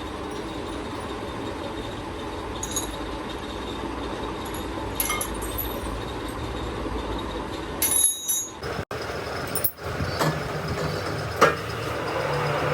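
Steady workshop noise with a few sharp metal clinks. The sound cuts off abruptly a couple of times near the middle, then a steady low machine hum comes in.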